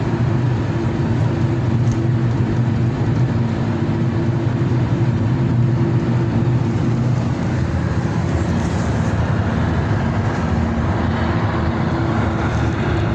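Car driving at a steady speed: a continuous engine drone mixed with road noise, holding an even level without rising or falling.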